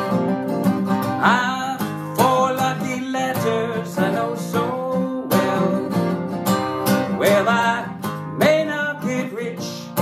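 Acoustic guitar, capoed, strummed in a steady rhythm through an instrumental break in a simple country-style song, with some notes sliding up in pitch.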